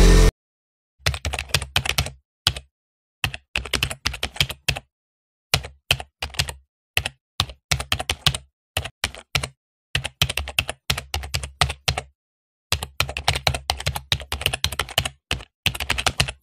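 Keyboard typing sound effect: bursts of rapid key clicks separated by dead-silent pauses, right after music cuts off abruptly at the start.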